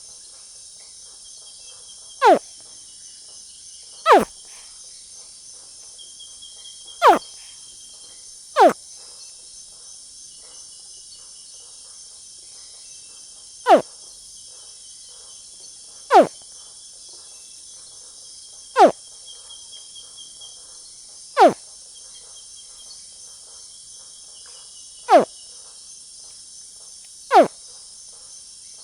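Young crocodile giving short calls that each drop sharply in pitch, ten of them at irregular intervals of two to five seconds. Under them runs a steady high chorus of crickets.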